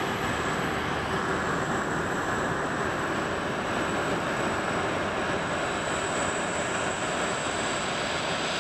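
Airbus A380's four Engine Alliance GP7270 turbofans running as the jet taxis: a steady jet rumble with a thin, high, steady whine over it.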